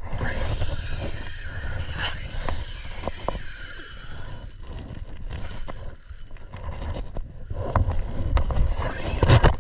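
Spinning reel being cranked against a hooked fish, a mechanical whirr with scattered clicks, under gusting wind on the microphone and water against the kayak's hull.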